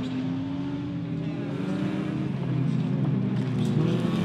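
Several folk race cars' engines revving hard as they race on a dirt track, pitches rising and falling as the drivers work the throttle. The engines grow louder over the second half as cars come past close by.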